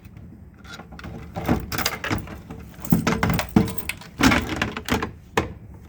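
A plastic Stopper protective cover being fitted back over a fire alarm pull station, making a handful of clacks and knocks spread over several seconds amid handling rattle.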